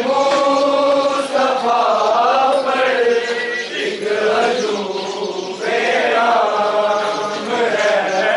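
A crowd of men chanting together in a Muharram mourning procession, loud and steady, the voices moving in long drawn-out phrases with brief dips between them.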